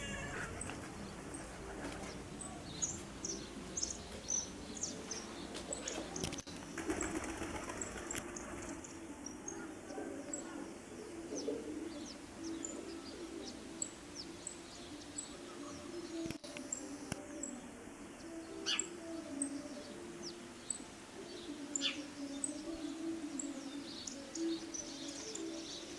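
Small birds chirping outdoors: short, sharp high chirps scattered throughout, over a steady low drone.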